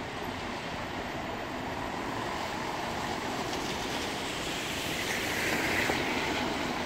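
City traffic on wet roads: a steady wash of tyre hiss on wet asphalt from buses and cars, swelling around five seconds in as a vehicle comes closer.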